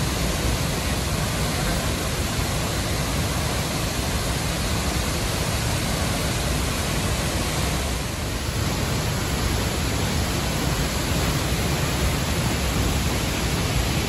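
Tall waterfall pouring into a pool: a loud, steady, even rush of falling water, with a slight dip about eight seconds in.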